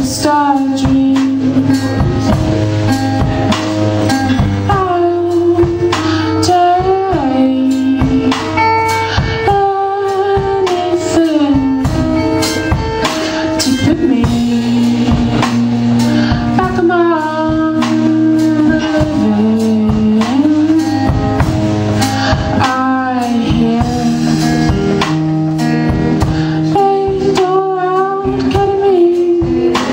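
A band playing a song: a singer over guitar and drums, with a steady beat throughout.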